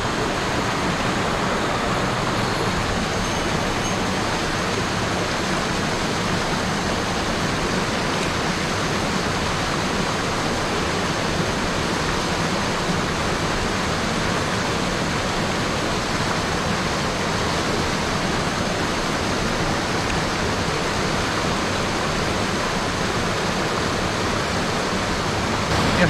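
Mountain stream rushing steadily over small cascades and boulders, running high with rain and snowmelt.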